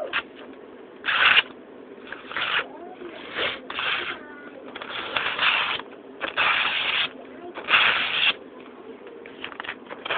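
A custom O1 tool-steel fixed-blade knife drawn in about seven separate strokes, each a short scraping hiss, with the longer strokes coming in the second half.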